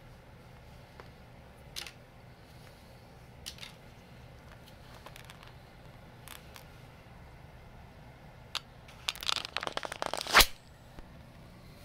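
Plastic action figure being handled: a few faint clicks, then a burst of plastic clicks and rustling near the end that finishes in one sharp knock.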